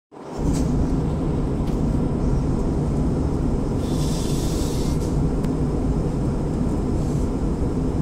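Steady low rumble of an airliner cabin in flight, engine and airflow noise heard through the fuselage. A brief higher hiss rises over it about four seconds in.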